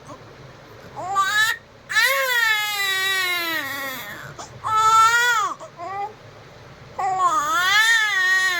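Baby crying in a series of four high-pitched wails with short breaths between them; the second is the longest, about two seconds, sliding down in pitch.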